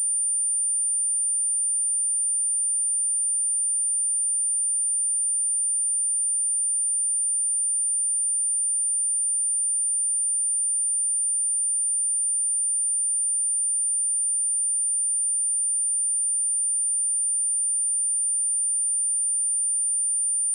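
A steady, high-pitched pure sine-wave test tone at 9183 Hz, held without change. It is a speaker test tone, used to check speakers and headphones or to shake water and dust out of a speaker.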